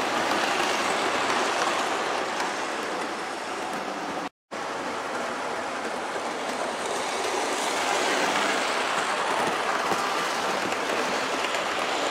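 Model trains running on the layout's track: a steady whirr of locomotive motors and wheels rolling over the rails. The sound cuts out for a split second about four seconds in.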